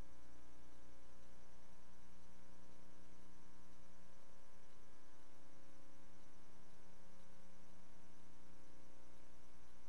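Steady electrical hum with a faint hiss, a set of unchanging tones and no other sound: the background hum of a silent archival film transfer.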